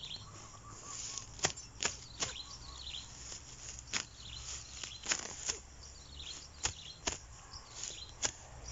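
Parang (machete) chopping through grass: sharp, irregular strokes, about nine in all.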